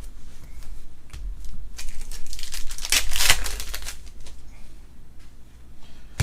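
Foil trading-card pack crinkling and tearing open, a few light rustles at first, then a dense crackling stretch about two to three and a half seconds in.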